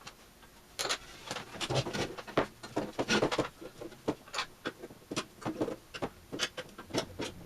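Irregular clicks, knocks and scrapes of hands working an old signal generator's chassis loose from its case, where it is held by rubber grommets stuck to the side.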